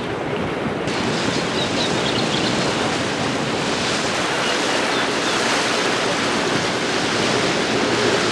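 Steady rushing water and wind noise on the microphone aboard a moving boat, with no engine tones standing out. The hiss turns brighter about a second in.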